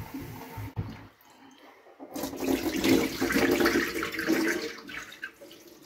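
Water splashing into a stainless steel sink as soaked popcorn kernels are rinsed in a steel bowl under the tap and the rinse water is drained off. It drops away briefly about a second in, then comes back louder for about three seconds.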